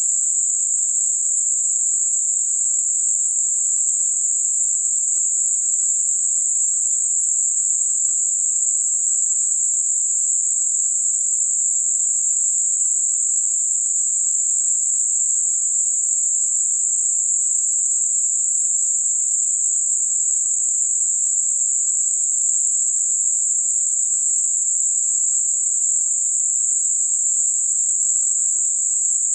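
Steady synthetic narrowband noise, a high-pitched hiss centred on 7.5 kHz and fading off between about 5.5 and 9.5 kHz: Gaussian-filtered noise for masking high-frequency tinnitus.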